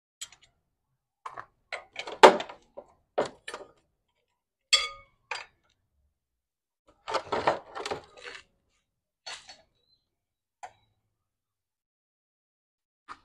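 Metal hand tools and loose generator parts clinking and knocking against one another as the engine and alternator are taken apart: a string of sharp, uneven clinks and knocks, one ringing briefly like struck metal about five seconds in.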